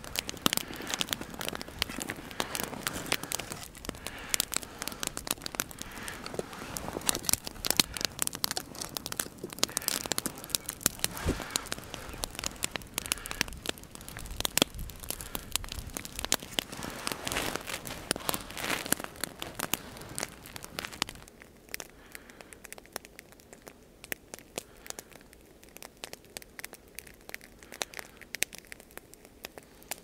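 Wood campfire crackling and popping densely, then turning quieter and sparser about twenty seconds in.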